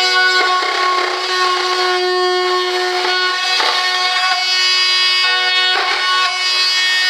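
Background music with held instrumental notes, with short rasping sounds of hand cutting or sanding on the airframe mixed in.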